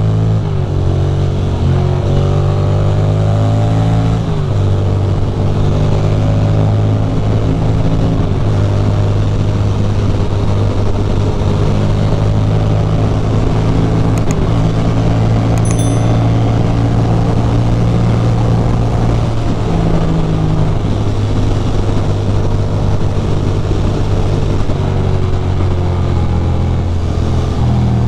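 Ducati Monster's V-twin engine under acceleration, its note climbing and then dropping at an upshift about four seconds in, before running steadily at highway speed under a rush of wind noise.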